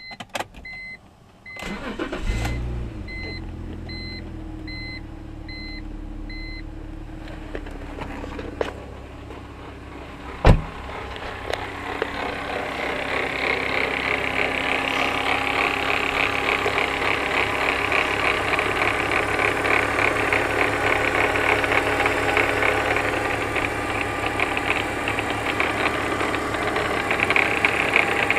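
BMW 325xi's 2.5-litre straight-six starting and running warm, with an in-car chime beeping for the first several seconds and a single thump about ten seconds in. From about twelve seconds a loud, fast-ticking buzz rises from the engine bay over the idle and stays; the noise was traced to a bad alternator.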